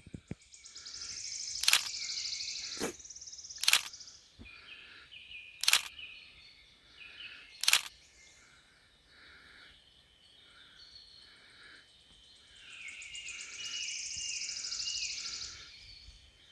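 A camera shutter firing six times in the first eight seconds, at uneven gaps of one to two seconds. Under it is outdoor ambience with birds: a buzzy high trill at the start and again near the end, and a steady run of softer repeated calls.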